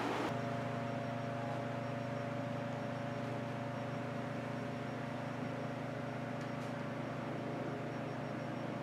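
Steady ventilation hum with several steady tones mixed into a low rush of air, running evenly without a break.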